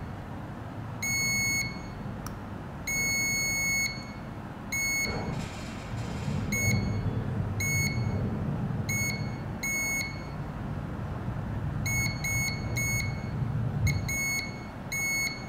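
Digital multimeter in continuity mode beeping again and again in short and longer beeps at irregular intervals as the probes are touched to capacitors around a phone mainboard's power output, the beeps showing a short to ground on the rail.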